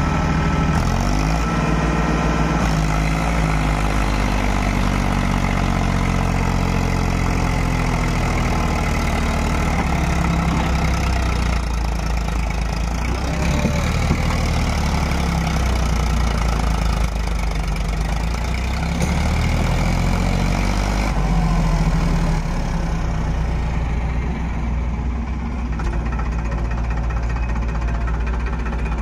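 Powertrac Euro tractor's diesel engine running hard, pulling a loaded trailer through soft mud. Its engine speed rises and falls several times.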